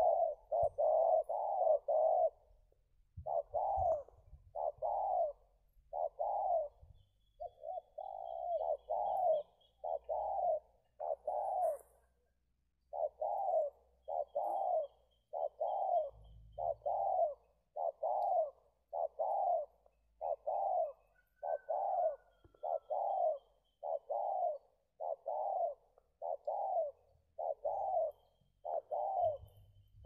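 Spotted dove (tekukur) cooing: a long run of evenly spaced coos, about one a second, broken by a few short pauses. Faint high chirps of another bird sound in the background.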